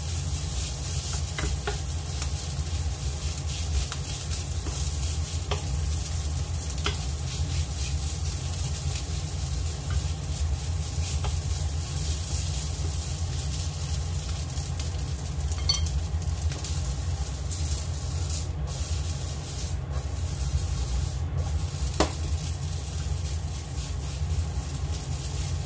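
Chopped hot dog pieces frying in oil in a frying pan, sizzling steadily while a wooden spatula stirs and scrapes them, with a few light knocks against the pan. A steady low hum runs underneath.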